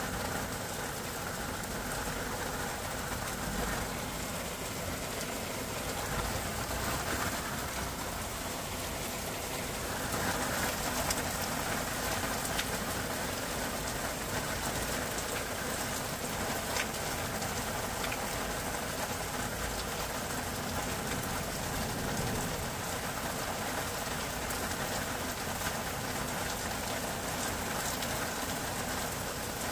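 Sliced onions sizzling and crackling steadily in hot oil in a non-stick frying pan as they fry down to golden brown, with light scrapes of a silicone spatula stirring them.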